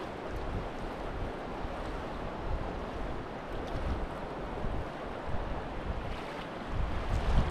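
Fast-flowing river water rushing steadily, the Snowy River running high with snowmelt, with wind buffeting the microphone in low gusts that grow stronger near the end.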